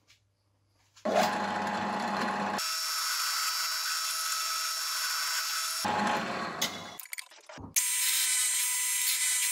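Drill press motor running as its twist bit bores into a pine block. It starts about a second in, tails off around seven seconds, and starts again for a second hole near the end.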